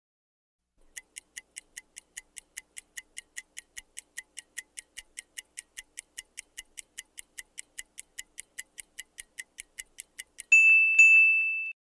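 Quiz countdown-timer sound effect: a clock ticking at about four ticks a second, then a held electronic beep of about a second near the end as the time runs out.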